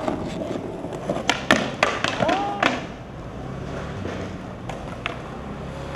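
Skateboard hitting the pavement: a quick cluster of sharp clacks and knocks of the board and wheels over about a second and a half, then a steady low rumble.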